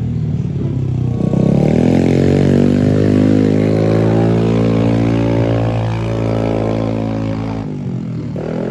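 A motor vehicle's engine working hard close by. Its pitch rises about a second in, holds steady for several seconds, then drops away near the end.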